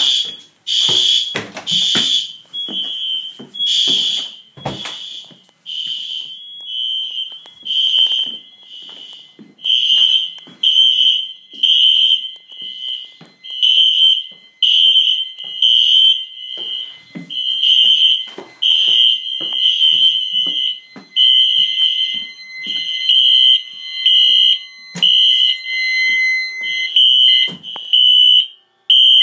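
Fire alarm horns sounding a high-pitched pulsing tone, about one beep a second, with a second, lower steady tone for much of the time and scattered clicks.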